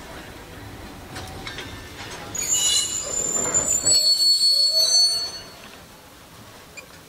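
Heritage passenger carriages rolling slowly with a low rumble, then a loud high squeal from the wheels and brakes for about three seconds as the train draws to a stop; the rumble ends about four seconds in and the squeal dies away shortly after.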